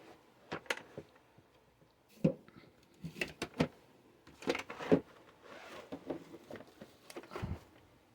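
Handling noise from a drill bit set: scattered clicks, knocks and rustles as the bit case and its bits are moved about, with a louder knock near the end.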